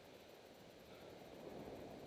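Near silence: faint, steady background noise with no distinct sounds.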